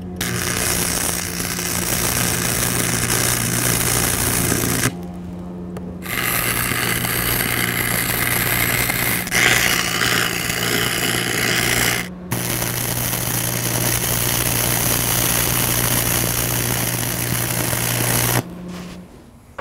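Stick welding with a Lincoln 225 AC arc welder: the arc's steady crackling sizzle over a low electrical hum, in three long runs that break off briefly about 5 and 12 seconds in and stop about a second before the end.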